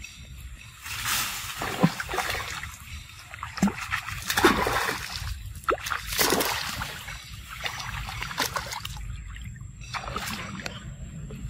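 Macaques splashing in a pool as they leap in, wade and swim: an irregular string of water splashes, the loudest about four and a half and six seconds in.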